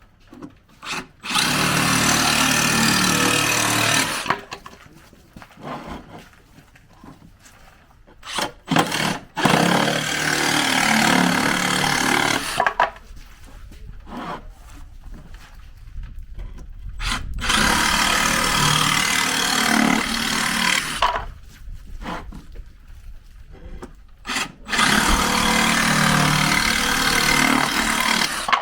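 Makita JR187DZ 18V cordless reciprocating saw with a wood blade cutting through 12 mm plywood, in four separate cuts of about three to four seconds each. Between cuts there are quieter knocks and handling noises.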